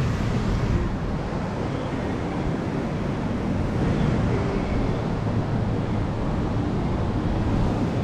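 Steady wind rumbling on the microphone over the wash of ocean surf.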